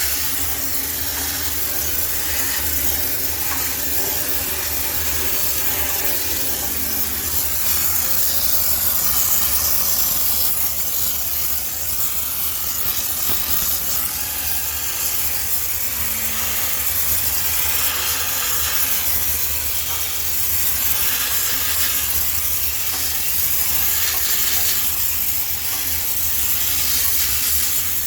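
High-pressure steam sterilizer jetting steam into a laundromat washing machine, a steady loud hiss with a steady low hum underneath.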